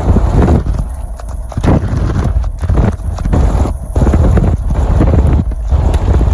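Strong wind buffeting the microphone: a loud, low, gusting rumble that surges and drops irregularly.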